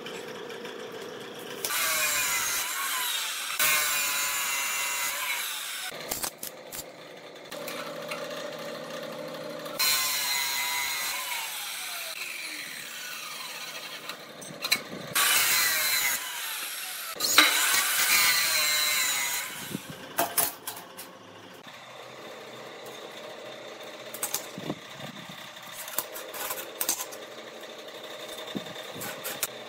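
Abrasive cut-off saw (chop saw) grinding through flat steel bar in several cuts, its wheel's whine falling in pitch between cuts. From about 20 s in, quieter light clicks and scrapes of a steel square and rule being laid on the steel.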